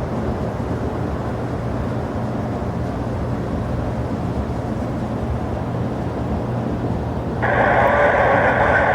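Steady low rumble of airport and aircraft engine noise with a faint hum. About seven seconds in, an air traffic control radio transmission cuts in abruptly, thin and tinny.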